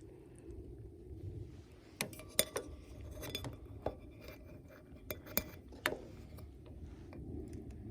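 Eating utensils clinking against tableware: a handful of sharp, scattered clinks over a steady low background rumble.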